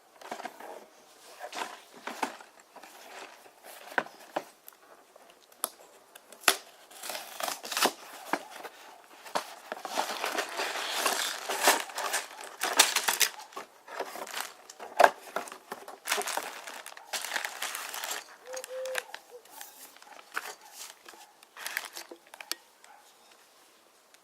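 Plastic packaging of a building-block set crinkling and tearing as it is handled and opened, with irregular rustles and many sharp clicks.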